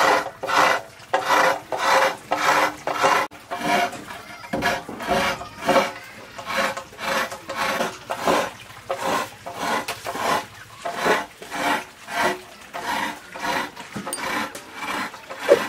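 Spices being ground by hand on a shil-pata grinding stone: the stone roller rasps across the slab in a steady rhythm of about two strokes a second.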